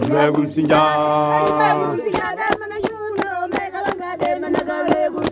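Voices chanting the word "Msinja" in long held notes, a Chewa shrine chant. About two seconds in, quick, even, sharp percussive beats, roughly four or five a second, join the singing.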